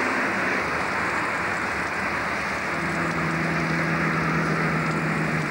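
Diesel engines of three 81 class locomotives hauling a coal train towards the listener, their steady hum coming in about two and a half seconds in over a constant hiss.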